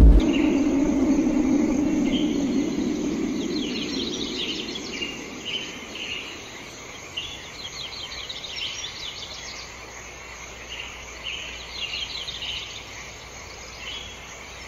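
High-pitched wildlife chirping in short repeated bursts, with a low sustained tone dying away over the first few seconds.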